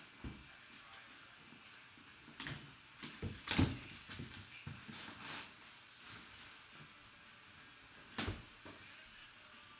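Plastic shrink wrap crinkling and tearing as it is pulled off a cardboard box, with the box being handled. A cluster of louder crackles comes a few seconds in, and one more sharp rustle near the end.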